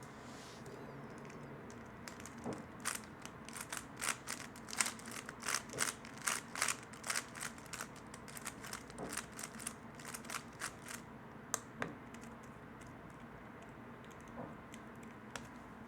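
3x3 speedcube being turned quickly by hand: a rapid run of sharp plastic clicks as the layers snap round, thickest from about three to eleven seconds in, then a few scattered clicks.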